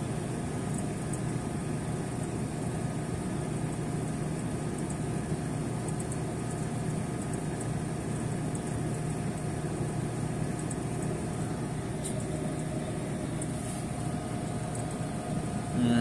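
Small refrigeration compressor of a reach-in cooler running with a steady hum while it is being charged with R134a. It is low on refrigerant, pulling its suction side down toward a vacuum.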